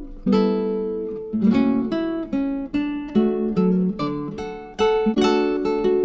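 Background music: an acoustic guitar playing plucked notes and chords, each struck sharply and ringing out, about two a second.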